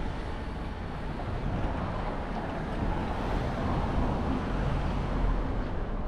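Steady outdoor street noise with a low rumble, swelling slightly partway through.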